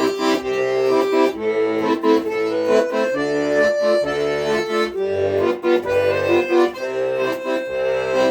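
Accordion playing a melody of held notes over a bass accompaniment whose low notes change every second or so.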